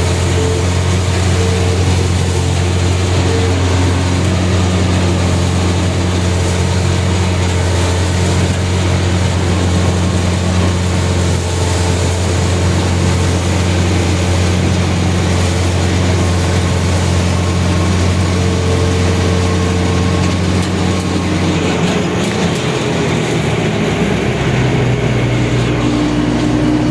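A large vehicle engine running steadily with a low, even hum, its pitch shifting about 22 seconds in.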